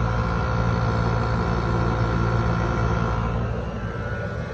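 Window air conditioner running: a steady low compressor hum with fan noise, and a higher steady tone that drops out about three seconds in.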